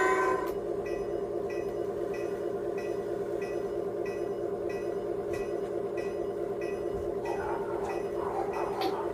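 Simulated diesel locomotive engine sound from an MRC Symphony 77 model-railroad sound system: a steady drone with a regular pulsing beat, opening with a short horn note. Near the end a rattle joins in as the HO scale GP locomotive rolls along the track.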